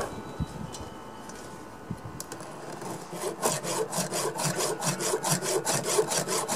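Round chainsaw file stroked back and forth across the cutters of a saw chain, sharpening it: quick, even rasping strokes that start about two seconds in and grow louder, after a couple of faint knocks.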